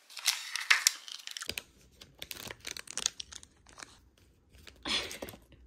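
Crisp crunching for the first second and a half, then plastic snack wrappers crinkling and rustling as individually wrapped cookies are handled in their box, with a louder rustle about five seconds in.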